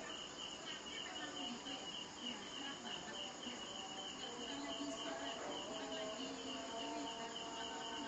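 A cricket chirping in a steady, evenly spaced pulse of about five chirps a second, over a faint even splash of the aquarium's waterfall.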